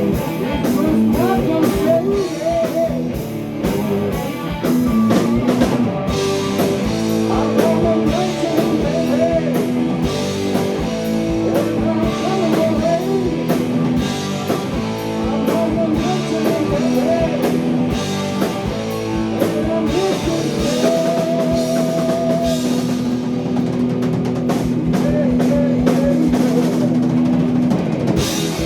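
Heavy blues-rock band playing live: drum kit and bass under an electric guitar lead line with bends and a quavering held note about two-thirds of the way through.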